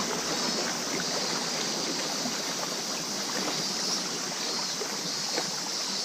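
Small river waves lapping and splashing against concrete wave-breaker blocks at the water's edge, a steady wash with many small splashes.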